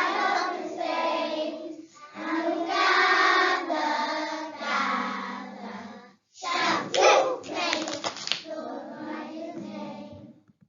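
Children singing a song together, with a few sharp clapping sounds around the middle; the singing stops shortly before the end.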